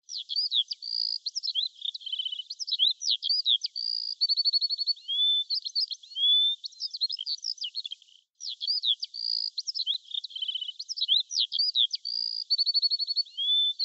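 Songbird singing a quick, varied, high-pitched song of whistles, trills and chirps. It breaks off briefly about eight seconds in, then the same song passage repeats.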